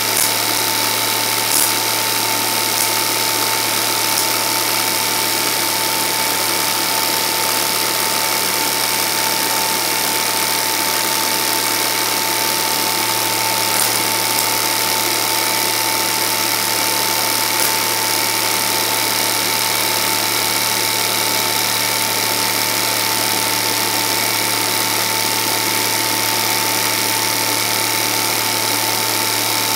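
Film projector running: a steady mechanical whir with a constant high whine over a low hum, and a few faint clicks.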